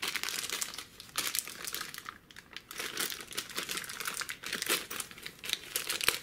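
Clear plastic bag of small metal hold-down clamps crinkling as it is handled and turned over in the hands, an irregular rustling crackle with a brief pause about two seconds in.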